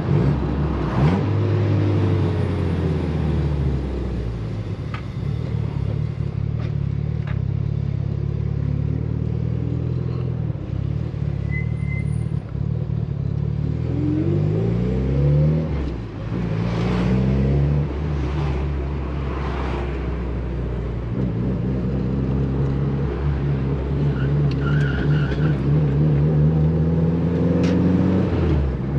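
Mitsubishi Lancer Evolution VIII's turbocharged four-cylinder engine being driven through the gears. The revs climb and drop back at each shift several times, with a few short hisses standing out, the loudest near the middle and near the end.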